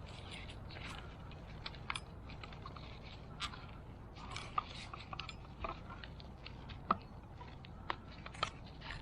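Irregular light clicks and scrapes of hard plastic parts being handled and pressed together while a plastic piece is worked onto a car's fuel pump assembly, with a few sharper clicks in the second half.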